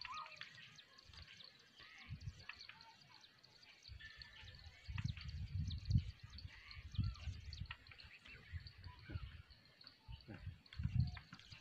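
Outdoor pond-side ambience: birds chirping and twittering, with a low rumble that comes and goes, strongest around the middle and again near the end.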